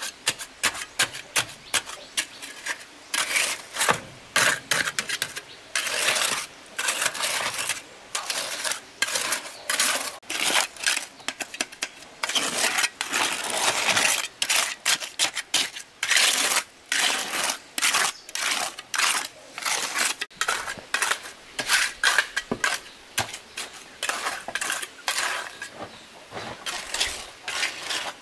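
Metal hand trowel scraping through wet concrete in quick, irregular strokes, with light metallic clinks.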